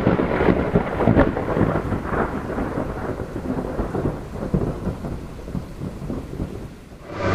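A long roll of thunder, loudest at the start and slowly dying away over about seven seconds, used as the sound of a logo animation.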